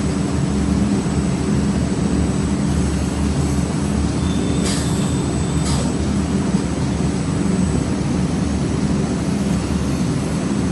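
Blade-sharpening machine running with a steady low hum, and two brief sharp hisses about five seconds in.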